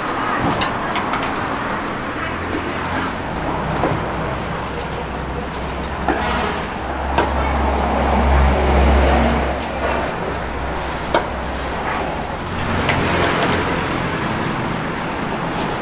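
Road traffic rumbling steadily, with a heavy vehicle swelling loudest about seven to ten seconds in. A few sharp clicks stand out over it.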